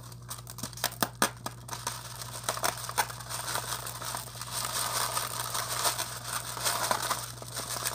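Small plastic bracelet beads rattling and spilling out of a round plastic bead case, with sharp plastic clicks in the first couple of seconds and a denser crackling patter after that.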